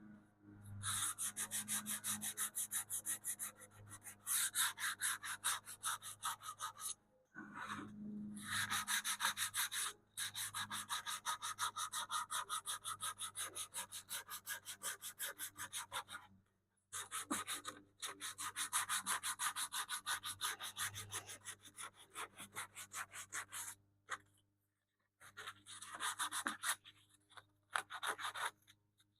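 Canvas-backed sandpaper rubbed by hand across the wood of a radio cabinet in quick back-and-forth strokes, several a second. The strokes come in long runs broken by a few short pauses.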